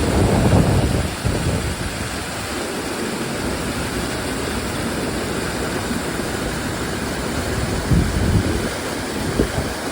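Steady rushing of a waterfall, with gusts of wind buffeting the microphone near the start and again near the end.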